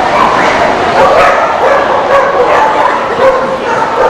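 Many dogs barking and yipping at once, their short calls overlapping in a continuous din.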